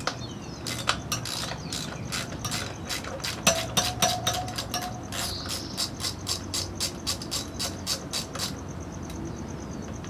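Ratchet wrench clicking in irregular strokes, a few clicks a second, as the nut of a motorcycle rear wheel's rim lock is loosened; the clicking stops a couple of seconds before the end.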